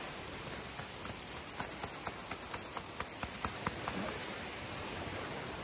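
Steady wind and surf noise, with a quick run of sharp clicks, about four a second, from about a second and a half in until about four seconds in.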